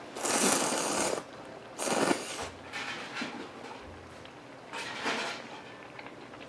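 Ramen noodles slurped loudly from a bowl: one long slurp, then shorter ones about two seconds in and about five seconds in, with softer mouth sounds of chewing between.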